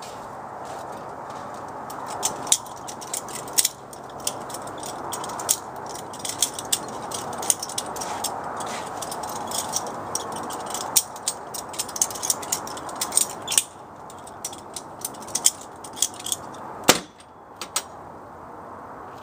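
Homemade butterfly knife (balisong) with milled aluminium handles and welding-rod pivot pins being flipped: irregular runs of sharp metallic clicks and clacks as the handles swing on their pins and slap together. One of the loudest clacks comes about 17 seconds in, over a steady background noise.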